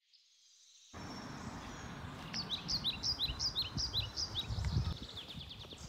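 A songbird singing a run of quick down-slurred notes that alternate between a higher and a lower pitch, then a fast trill near the end, over a low outdoor rumble that starts about a second in.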